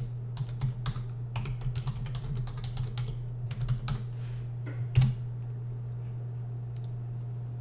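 Typing on a computer keyboard, a quick run of key clicks for about four seconds, entering a new password. A single louder click comes about five seconds in, then only a steady low hum.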